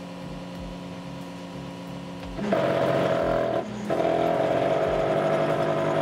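Stepper motor of a Velleman Vertex K8400 3D printer driving the Y axis, making a steady electric whine in several tones. About two and a half seconds in it turns louder and higher-pitched, drops out briefly a little later, then resumes. The owner puts the noise down to the axis catching because its guide rod is not parallel with the side rods.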